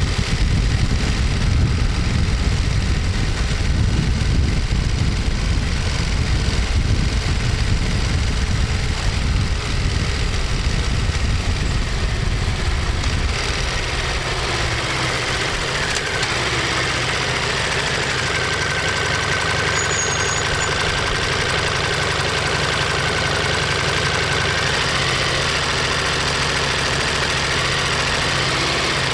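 Ducati Monster 1200S's L-twin engine and exhaust running with a heavy low rumble for about the first half, then settling to a steadier, less bassy note, idle-like. A thin steady whine sits over it for several seconds past the middle.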